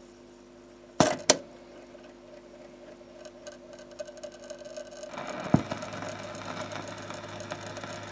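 Stylus being lowered onto a spinning shellac 78 rpm record: a faint steady hum with two sharp clicks about a second in. About five seconds in, the needle meets the lead-in groove with a thump, and surface hiss and crackle follow.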